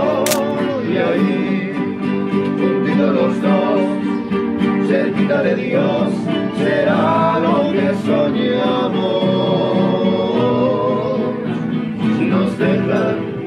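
Background music: a song with a singing voice over plucked guitar, playing steadily.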